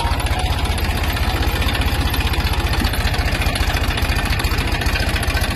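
Diesel tractor engine running steadily under the rider, with an even, rapid low pulse.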